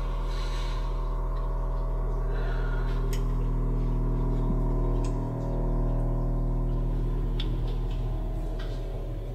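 A low, steady drone of sustained tones with no beat, a dark ambient suspense score. A few faint clicks sit over it, and it dips briefly about five seconds in.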